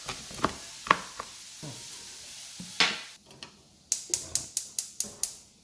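Food sizzling in a frying pan while a utensil stirs and scrapes in it. Near the end comes a quick run of light clicks, about six a second.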